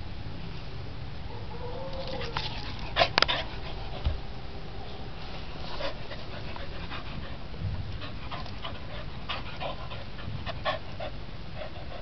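Small dog's sounds: a short whine about two seconds in, a cluster of loud, short sharp sounds just after, then a string of quieter short sounds, over a steady low rumble.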